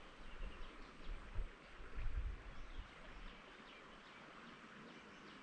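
Faint outdoor ambience. Low rumbles and thumps on the microphone during the first three seconds, then a steady quiet hiss with faint high bird chirps.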